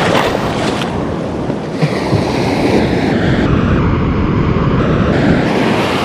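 Surf washing and breaking in shallow water, a steady rushing with no pause.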